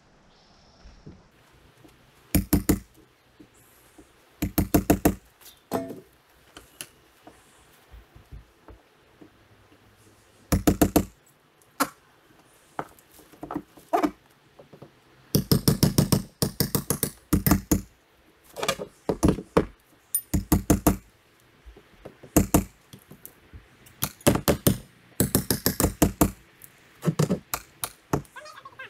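Hammers striking T1-11 plywood siding and its nails, in many short bursts of quick blows.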